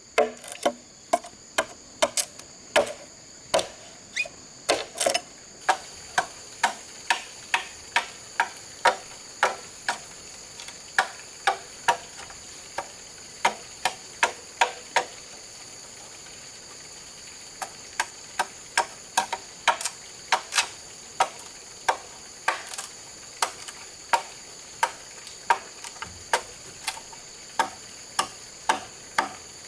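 A hand tool striking bamboo in a steady run of sharp knocks, about two a second, pausing for a couple of seconds midway. A steady high-pitched insect drone runs underneath.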